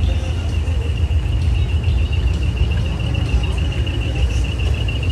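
Low, steady rumble of a heavy truck's engine running, with a steady high-pitched tone above it.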